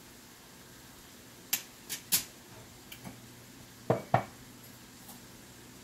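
A metal spoon clinking against a cooking pot: a few light, sharp clicks about a second and a half in, then two louder knocks a quarter second apart about four seconds in, as the spoon is tapped on the pot.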